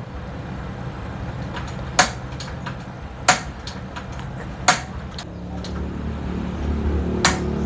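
Popcorn machine's 12-volt stirrer motor humming steadily, with four sharp clicks as the gas stove's igniter is worked under the pot. About five seconds in, a low rumble builds as the gas burner catches.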